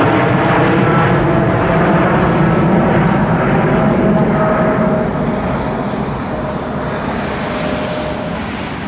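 Boeing 777-300 twin turbofan engines at climb power: a steady jet roar with faint whining tones, fading after about five seconds as the airliner climbs away.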